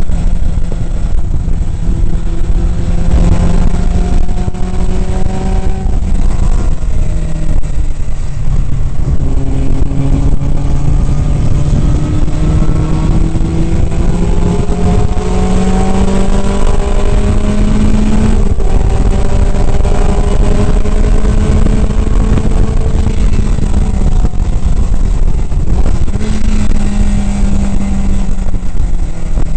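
Datsun 2000 roadster's 2.0-litre four-cylinder engine running hard at racing speed, heard from inside the open cockpit. Its pitch climbs slowly through long pulls and drops at gear changes or lifts about seven seconds in and again near the end, over a steady rush of wind and spray noise.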